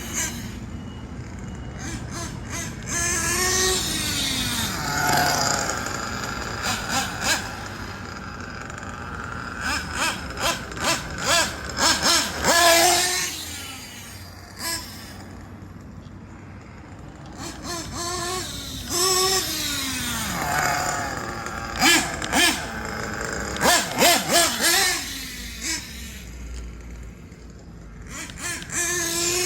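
Nitro glow engine of a Kyosho Inferno NEO ST 3.0 RC car revving up and down as the car is driven. The pitch rises and falls again and again, growing loud in swells about every eight seconds with quieter stretches between, and sharp knocks scattered through.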